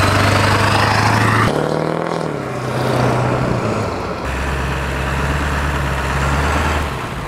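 A van's engine running close by: a steady low hum with road noise, changing abruptly a couple of times.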